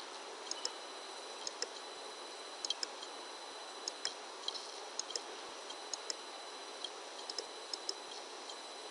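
Faint computer mouse clicks, often in quick pairs, coming irregularly about once or twice a second over a steady low hiss.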